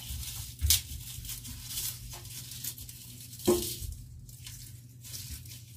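Lettuce and its plastic bag being handled and torn at a kitchen table: scattered rustling and tearing with two sharper knocks, one near the start and one about halfway through, over a steady low hum.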